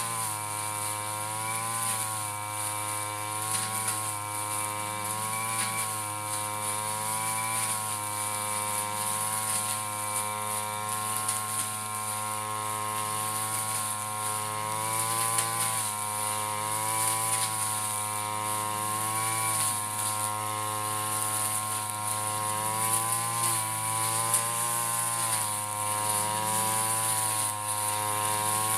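Backpack brush cutter's small engine running fast as its blade cuts through tall grass, its pitch rising and falling slightly over and over.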